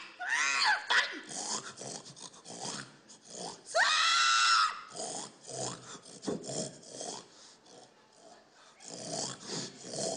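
A person imitating a pig: two loud high squeals, one about half a second in and a longer one about four seconds in, with short grunts in between and more grunts near the end.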